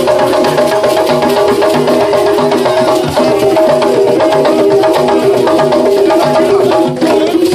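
Live traditional drum music: hand drums beating a steady rhythm, with a held melodic line over them.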